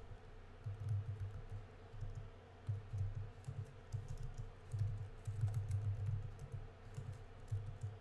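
Typing on a computer keyboard: irregular runs of keystroke clicks with soft low thuds.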